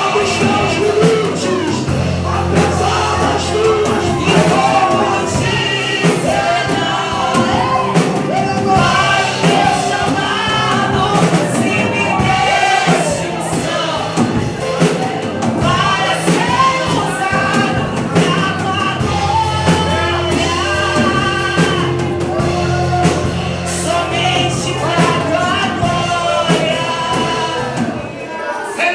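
Brazilian gospel worship song: a woman singing over a band with sustained bass notes.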